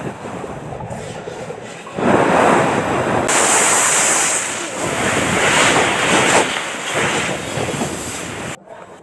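Rushing, water-like noise of the sea heard underwater. It swells about two seconds in and cuts out briefly near the end.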